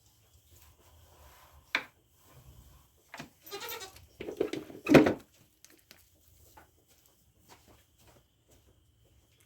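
Nigerian Dwarf goat bleating: one call about halfway through that ends loudest, after a short sharp knock a couple of seconds in.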